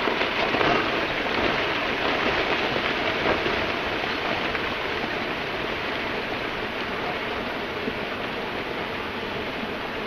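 Rockfall avalanching down a volcanic lava dome's flank: a continuous rushing clatter of tumbling blocks and sliding debris that slowly fades.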